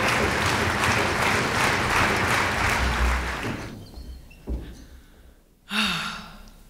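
Concert-hall audience applauding, dying away after about three and a half seconds, with a low thump or two as it fades. A brief voice-like sound comes near the end.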